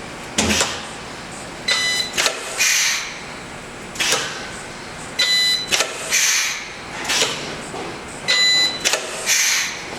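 Resistance spot welder making three welds on a three-sheet galvanized steel stack, about three seconds apart. Each weld is a sharp clunk as the electrodes close, then a short buzz of about half a second while the weld current flows, then a hiss.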